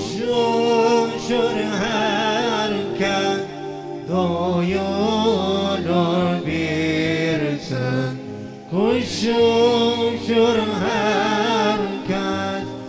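Male voice singing an Islamic hymn (ilahi) through microphones and a PA system, in long, ornamented melodic phrases over a steady low drone. The phrases break off briefly twice.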